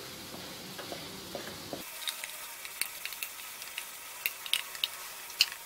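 Silicone spatula scraping thick purple sweet-potato brownie batter off the inside of a stainless steel bowl into a baking tin: a quiet wet scraping with a scatter of small sharp scrapes and taps against the metal, more frequent after about two seconds.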